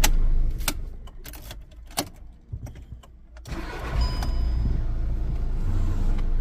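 Volkswagen Golf Mk6 engine switched off, then a few sharp clicks in the quiet as the ignition key is worked. About three and a half seconds in, the engine starts again and settles to a steady idle.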